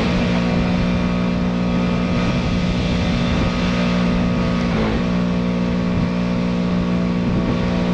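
Pressure washer running steadily: an engine's constant drone under the hiss of the water jet, with a brief wobble in pitch about five seconds in.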